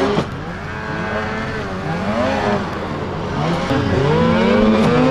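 Racing snowmobile engines revving through a corner and over a jump, the pitch climbing and dropping again and again. From about three and a half seconds in, two sleds can be heard at once.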